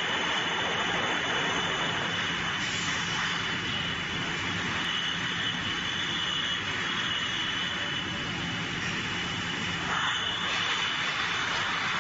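Automatic depalletizer and its bottle conveyor running: a steady, even machine noise with a constant high whine.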